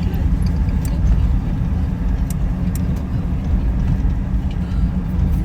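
Car driving along, heard from inside: a steady low rumble of engine and tyres on the road.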